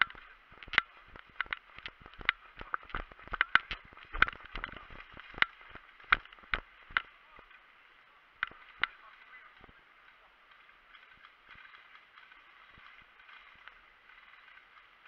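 Airsoft guns firing: a scatter of sharp, irregular cracks and clicks, dense for the first seven seconds and thinning out, with the last ones about nine seconds in. After that only a faint steady hiss remains.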